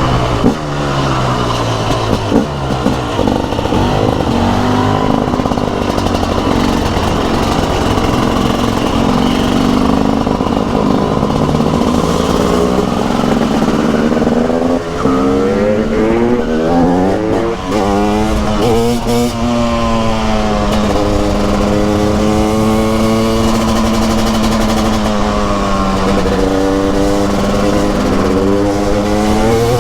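Single-cylinder two-stroke engine of a TM SMR 300 supermoto under way, its pitch rising and falling over and over as it accelerates and slows. It holds steadier for several seconds near the end.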